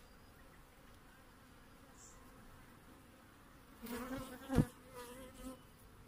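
Honeybees buzzing faintly around an open hive. About four seconds in the buzzing swells for a second or so with a steady pitch, and a single sharp knock sounds as a wooden brood frame is lifted out of the hive box.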